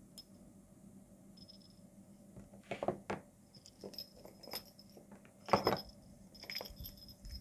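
Metal key ring and a small jingle bell jangling and clicking as they are handled, with short high tinkles from the bell. The loudest clatter comes about five and a half seconds in.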